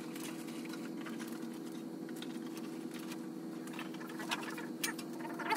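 Steady background hum in an engine shop, with light clicks and small rattles of parts and papers being handled on the workbench; the handling noises grow busier and louder near the end.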